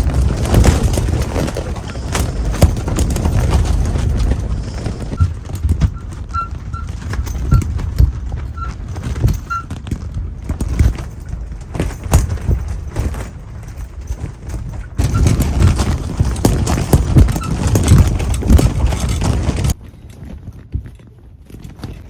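Strong wind buffeting, with irregular knocks and rattles, louder in stretches and dropping off sharply near the end.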